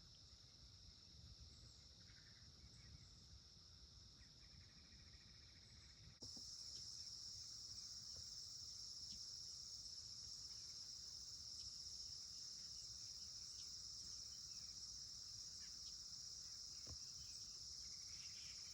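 Faint, steady chorus of crickets, a continuous high-pitched trill that gets louder about six seconds in, over a low background rumble.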